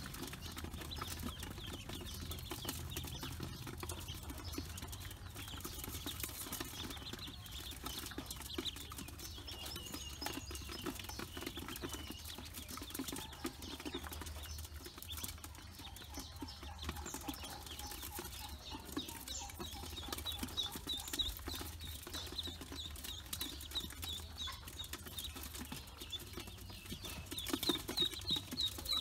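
A brood of ducklings peeping: many short, high peeps in quick runs, densest near the end. Light clicking of bills pecking feed from an aluminium basin runs underneath.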